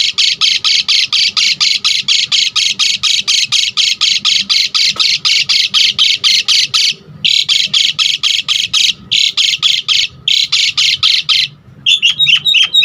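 Javan pied starling (jalak suren) calling in a rapid, harsh chatter of about six notes a second, broken by a few short pauses. Near the end it switches to quicker notes that sweep downward.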